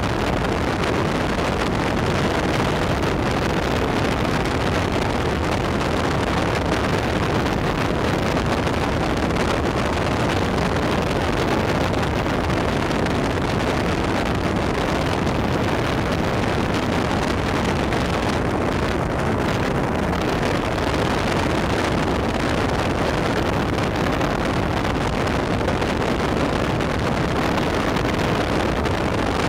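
Motorboat running at speed across calm water: a steady, even rush of wind on the microphone over the sound of hull and outboard motor noise.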